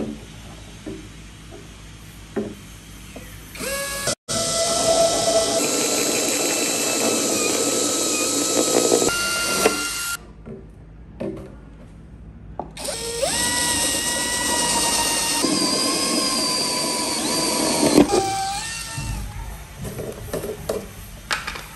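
Electric power tool motor running in two spells of several seconds each, with a steady whine; the second spell spins up as it starts. Scattered knocks and clicks of handling come before and after.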